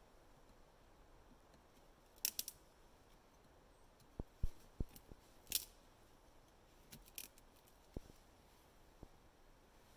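Knife cutting and prying at a rotten log, a handful of short, sharp crackles and scrapes spread out with quiet gaps between them.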